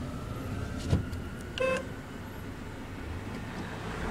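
Car cabin noise from the engine and road, with a sharp click about a second in and a short beep a moment later.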